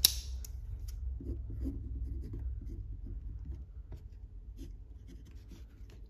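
Bastion Slim aluminum bolt-action ballpoint pen writing on a pad of sticky notes: a run of short, light scratching strokes as letters are written. A sharp tap at the very start.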